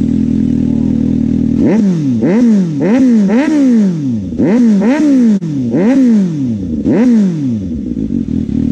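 2018 Suzuki GSX-S750's inline-four with a slip-on exhaust, idling and then blipped about eight times in quick succession, each rev rising sharply and falling back, before settling to idle. The note is smooth.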